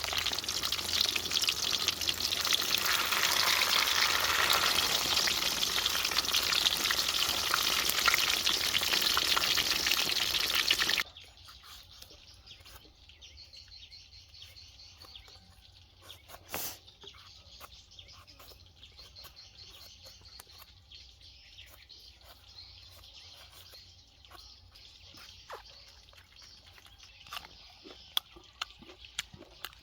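Fish sizzling loudly as it cooks, a dense crackle that cuts off abruptly about eleven seconds in. The rest is much quieter, with faint chirps and a few sharp clicks.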